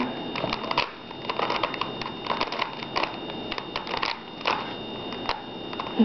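A 3x3 Rubik's Cube's plastic layers being turned in the hands: an irregular run of clicks and clacks as the faces snap round.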